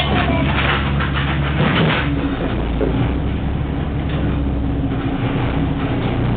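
Diesel engine of a city route bus heard from inside the passenger cabin, running as the bus pulls away from a stop and starts to move. There is extra noise in the first two seconds, and a steady engine tone holds from about halfway through.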